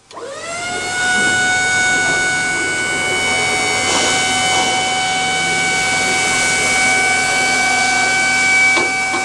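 Pallet stacker's electric hydraulic pump motor running under load, a steady high whine. It winds up in pitch over the first half second, then holds level.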